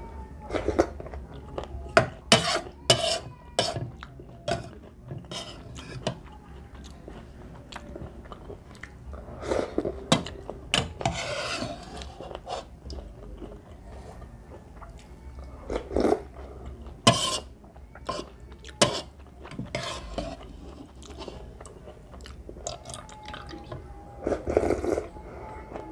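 Eating sounds: a plastic spoon clicking and scraping against a ceramic ramen bowl, with chewing and sips of broth between scoops. The clicks come irregularly, a few of them sharp and loud.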